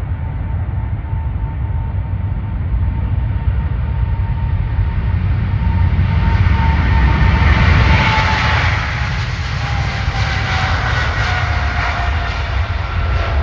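Airbus A380's four jet engines at takeoff power as the airliner passes: a steady roar with a deep rumble and an engine whine that slowly falls in pitch, loudest about two-thirds of the way through.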